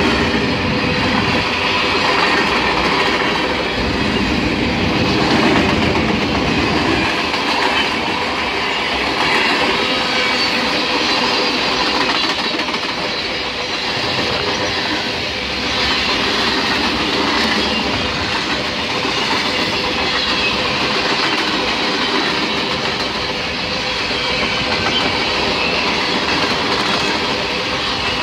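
Freight cars of a mixed freight train rolling past at close range: steel wheels running over the rails in a loud, steady rumble and clatter.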